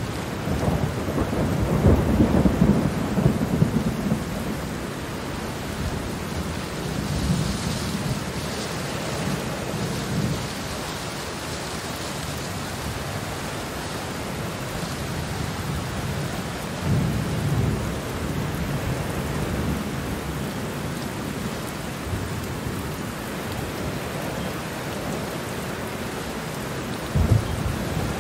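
Steady rain with thunder rumbling several times: a long low rumble in the first few seconds, weaker rolls in the middle, and a short sharp clap near the end.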